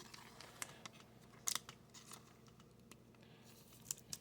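Trading cards being handled and flipped through by hand: a scatter of short, sharp snaps and taps of card on card, the sharpest pair about a second and a half in.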